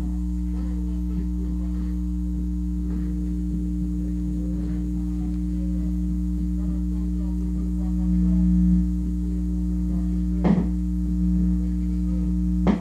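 Loud steady mains hum from a Dual 1009 record player setup, with faint music from the record just audible beneath it; the uploader takes it for a grounding problem. The hum swells briefly past the middle, and two sharp clicks come through, one about two thirds in and one near the end.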